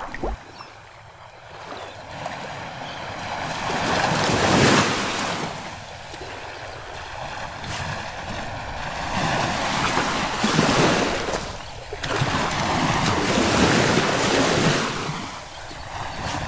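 Sea waves breaking and washing over shore rocks: the surf swells up about three times, with quieter lulls in between.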